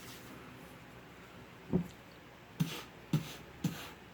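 Cologne atomizer bottle being sprayed four times in quick succession, each a short pump click with a brief hiss.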